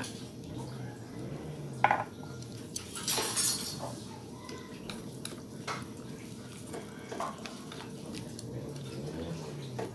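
Metal utensils clinking against a cooking pot as vegetables are stirred, with a sharp knock about two seconds in. About a second later comes a short pour of water from a glass into the pot.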